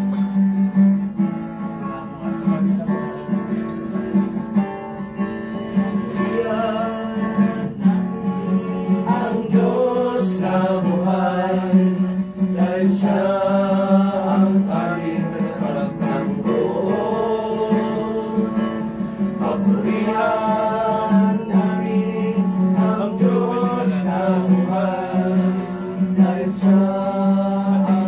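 Acoustic guitar strumming to accompany a group singing a hymn.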